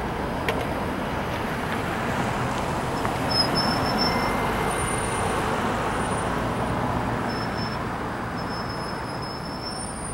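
Steady rush of road traffic, swelling a few seconds in and slowly fading.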